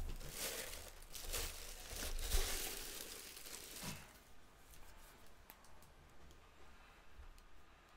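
Packing material rustling and crinkling as a statue's base is unpacked from its box, dying down after about four seconds to a few faint handling clicks.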